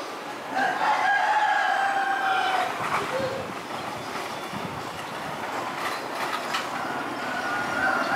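Train horn blowing a steady blast of about two seconds, starting just under a second in, and sounding again near the end, with the steady noise of the approaching train in between.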